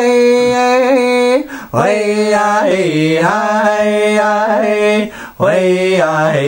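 A man singing unaccompanied, holding long, sliding notes, with two short breaks for breath, about one and a half and five seconds in.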